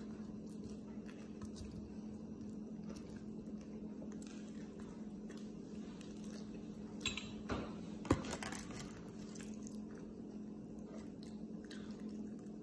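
Close-up chewing and mouth sounds of a person eating grilled pita and meat, over a steady low hum. A few taps come between about seven and eight seconds in, the sharpest just after eight seconds.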